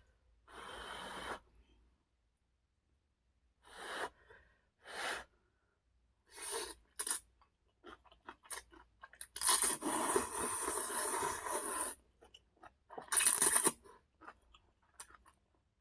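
Close-miked eating and tableware noises during a ramen and sushi meal: a series of short noisy bursts, then a long loud stretch about two-thirds through and a last short loud one.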